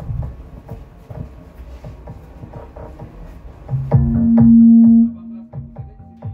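Dance music played through PA speakers driven by a Black Spider CA30 power amplifier under test: a quiet beat at first, then about four seconds in a loud held bass note for about a second before the music carries on.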